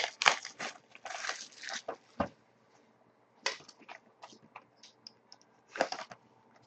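Plastic wrap being torn and crinkled off a sealed box of trading cards, in a run of tearing and rustling bursts for about two seconds, then a pause and a few more scattered crinkles and rips.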